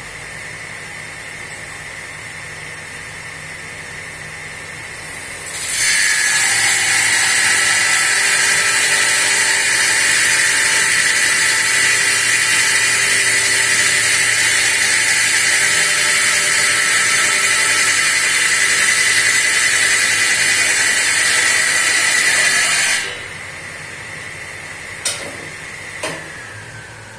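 Table saw running, then ripping a long taper cut along a wooden furniture-leg blank held in a tapering jig. A loud, steady cutting noise begins about six seconds in and lasts about seventeen seconds before the saw drops back to its idle hum. Two sharp knocks follow, and near the end the saw's tone starts to fall.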